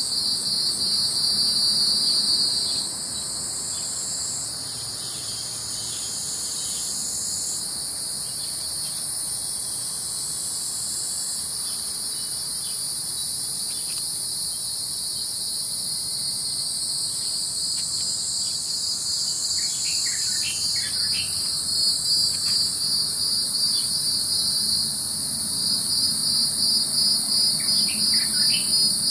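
A dense chorus of insects: a steady, very high shrill over a pulsing buzz a little lower. The buzz drops out after about three seconds and comes back near the end. A few short bird chirps are heard about two-thirds of the way through and again near the end.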